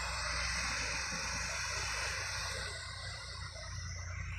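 Diesel engine of a loaded sugarcane truck pulling hard up a winding hill road, a steady low hum that grows a little fainter near the end as the truck moves away.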